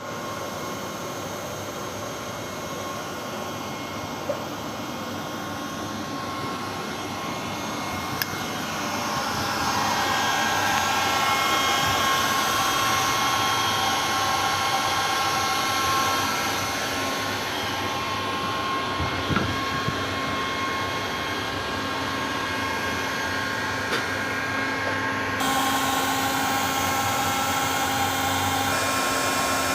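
Steady whirring machinery noise with several steady whining tones in it, growing louder about nine seconds in and changing in tone near the end, with a few sharp clicks.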